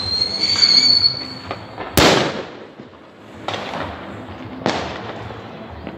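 New Year's fireworks going off: a whistling rocket rising slightly in pitch for about a second and a half, then a sharp loud bang about two seconds in, followed by two more bangs.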